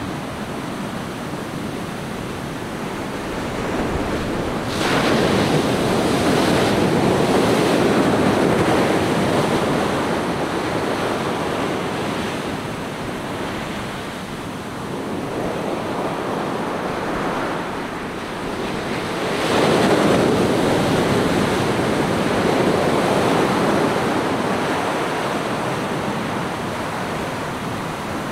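Ocean surf washing up a sandy beach: a continuous hiss of breaking waves with two louder surges as bigger waves come in, one about five seconds in and another about twenty seconds in.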